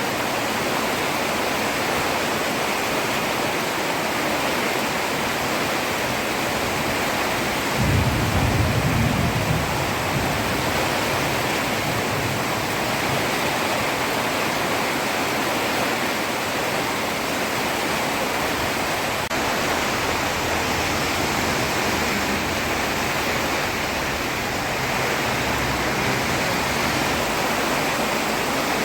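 Heavy rain falling steadily on a road: a dense, even hiss. About eight seconds in there is a brief, louder low rumble.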